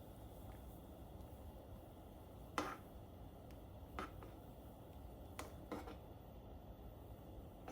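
Four short knocks and clicks from kitchenware being handled, the loudest about two and a half seconds in, over a low steady hum.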